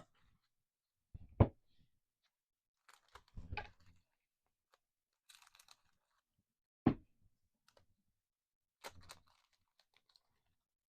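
Paper trading cards being handled and laid down: four short sharp taps and clicks a couple of seconds apart, with a brief soft rustle in the middle.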